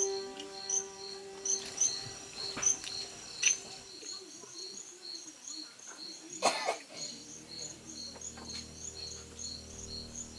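Crickets chirping at night in a steady, regular pulse of short high chirps. A held musical note fades out over the first few seconds, and a few sharp knocks cut through, the loudest about three and a half and six and a half seconds in.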